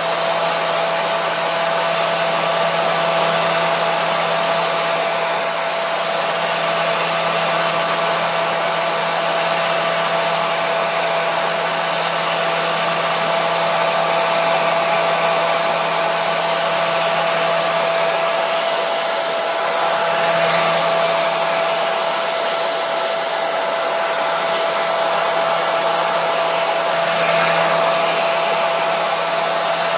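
Electric hair dryer running steadily on one setting: a continuous blowing rush with a steady motor hum.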